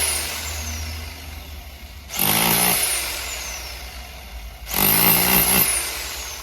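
A power tool triggered in short bursts about two and a half seconds apart, its motor whining down after each release.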